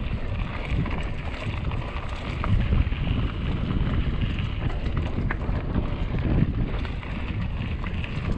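Wind buffeting an action camera's microphone on a moving mountain bike, a steady low rumble over the hiss of tyres on a dirt trail. A few light clicks and rattles from the bike come through.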